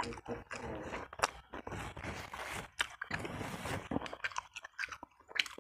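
A person chewing food close to the microphone: a steady run of wet mouth clicks and crunches.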